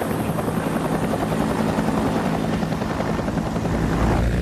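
Several Bell UH-1 Huey helicopters flying low, their rotors beating in a rapid, even chop.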